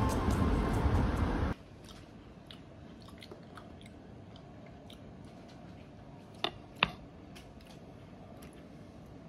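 Steady background noise that cuts off abruptly about one and a half seconds in, leaving a quiet room with faint scattered clicks and two sharper clicks close together near the middle.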